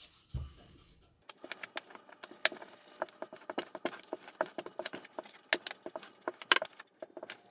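Small wooden rolling pin pushed back and forth over flatbread dough on a floured worktop, making many quick, irregular light clicks and taps.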